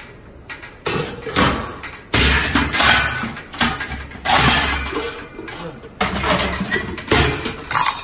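Brass vessels of a nested picnic set clanking and scraping against each other as they are lowered and fitted inside a large brass pot: a run of knocks, each with a short metallic ring.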